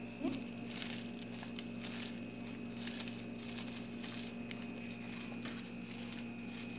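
A plastic-gloved hand mixing and mashing a bhorta of blended beans, chili and fish with onion and coriander on a plate: irregular soft crinkling and rubbing.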